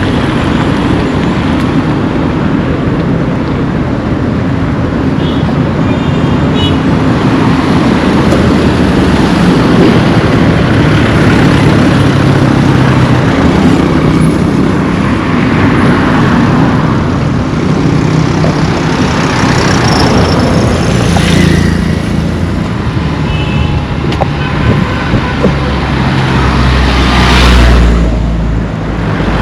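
Road traffic on a busy highway: cars and trucks passing close by one after another in a continuous rumble, with a strong low boom from a heavy vehicle near the end. Short high pips sound twice.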